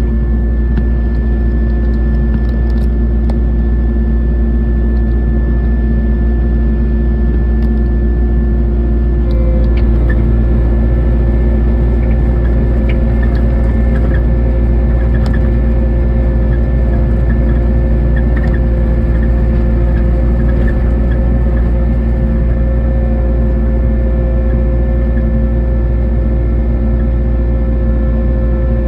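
Kubota SVL90-2 tracked skid steer's diesel engine running steadily at raised revs, powering a hydraulic snowblower. A little past nine seconds in, a higher steady whine joins and the sound gets slightly louder.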